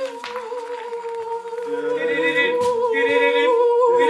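Unaccompanied voices singing or humming a long held note, with a second, lower voice joining about two seconds in and the sound growing louder.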